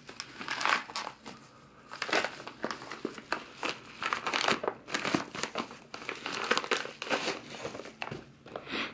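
Packaging crinkling and crumpling as it is handled, a run of irregular rustles and crackles.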